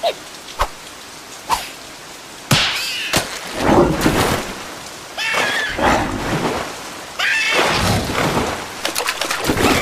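Cartoon rain sound effect: a few sharp drips in the first two seconds, then heavy rain pouring down from about two and a half seconds in, in surges, with short squeaky wavering sounds through it.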